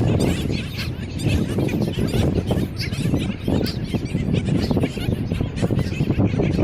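A colony of black skimmers calling, many short, quick calls overlapping one another, over a steady low rumble.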